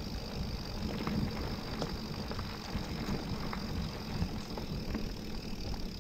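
Electric mountain bike being ridden on a dirt trail: a steady low rumble with scattered light clicks and rattles from the bike and the ground.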